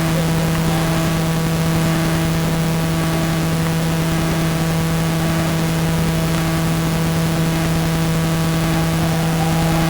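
A steady, unchanging low hum with overtones, over a constant hiss.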